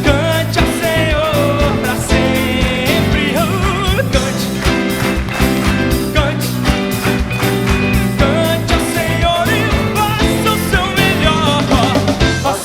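A live gospel band playing: drum kit keeping a steady beat under electric bass, electric guitar and keyboard, with a melody line that bends and wavers above.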